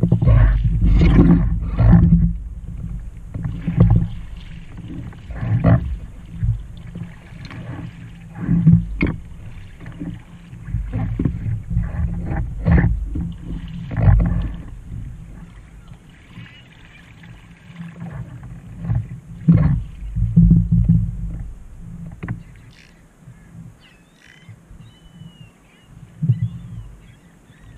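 Lake water slapping and sloshing against a kayak's hull and deck right by the deck-mounted microphone, with paddle blades splashing in the water, in irregular surges. It eases off for a few seconds near the end.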